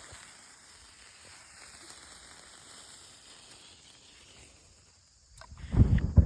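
A lit sparkler hissing faintly, then, about five and a half seconds in, a sudden loud low whoomp as the bonfire soaked in liquid fire starter ignites, with a second thump just after.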